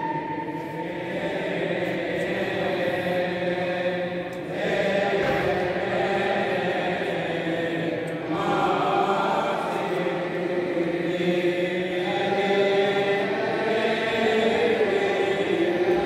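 A group of clergy chanting a liturgical prayer together in procession, several voices in continuous unaccompanied chant.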